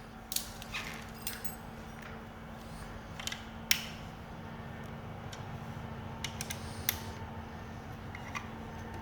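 Scattered metallic clicks and clinks of tools and parts being handled during disassembly work, about eight sharp ones spread across the stretch, over a steady low hum.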